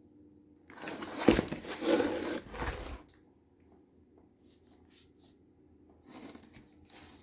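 Cardboard box rustling and scraping as a sisal-rope cat scratcher is handled and pulled out of it. The rustling lasts about two seconds, starting about a second in, and a shorter, softer rustle comes near the end.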